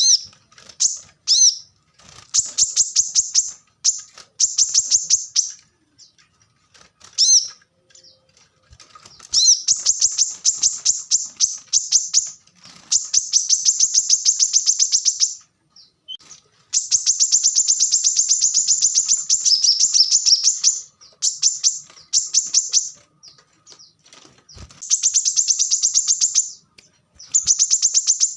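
Brown-throated sunbird (kolibri kelapa) singing: high-pitched bursts of very rapid repeated notes, like fast chattering trills, each lasting one to three seconds with short pauses between.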